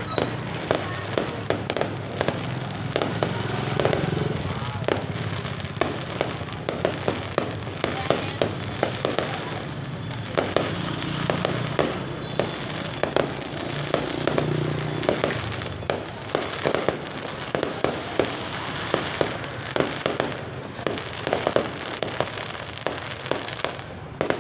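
Fireworks display: a rapid, irregular string of bangs and crackles, several a second, over a steady background din.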